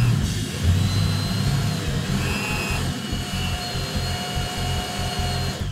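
Electric drill running steadily under load, boring into the end of a steel threaded rod held in a vise; it stops abruptly at the end. Background music plays underneath.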